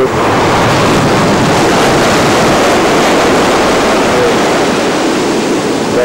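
Small waves washing up a sandy beach: a steady rush of surf.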